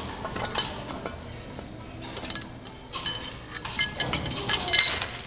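Steel lifting chain and hooks clinking against eye bolts and the metal rotator housing: a run of sharp, ringing metal clinks, growing thicker and loudest shortly before the end.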